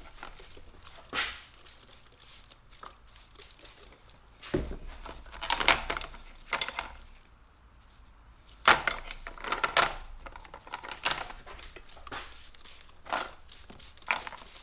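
WD-40 aerosol can sprayed in short hissing bursts onto steel snap ring pliers, with a few knocks from the tools being handled.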